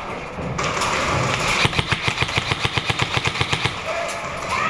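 Airsoft electric gun firing a full-auto burst: a rapid, even string of about nine shots a second, lasting about two seconds, starting about a second and a half in. A second of rushing noise comes just before it.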